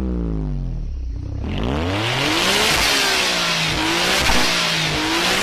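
Autozam AZ-1's small turbocharged three-cylinder engine being revved with the car standing still. The revs fall away, then climb sharply about a second and a half in and stay high with a strong rushing hiss.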